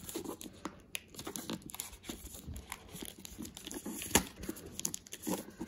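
Plastic shrink-wrap on a cardboard card box crinkling and crackling as fingers pick and tear at it, in many small irregular crackles with a sharper crack about four seconds in. The wrap is hard to get open.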